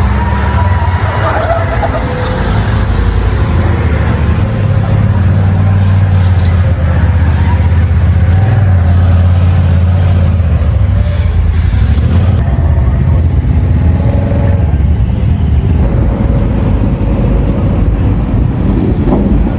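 A vehicle engine running steadily with a deep, even hum, and faint voices underneath.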